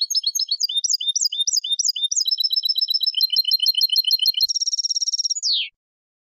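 European goldfinch singing clean Málaga-style tutor song. Quick phrases of short notes, each repeated several times before moving to the next, then a dry buzzing trill about four and a half seconds in, ending on a falling note before it stops.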